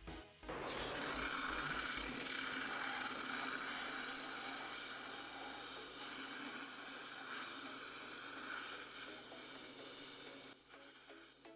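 A pressurised cleaning jet hissing steadily into a GDI engine's intake port while carbon is cleaned off the intake valves; it starts about half a second in and cuts off abruptly near the end.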